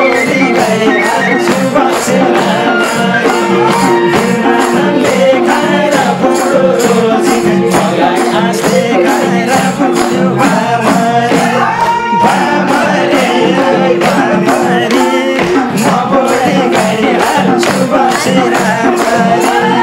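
Nepali folk dohori music between sung verses: madal hand drums keeping a fast, even beat under a flute melody and a steady held drone, with hand clapping along.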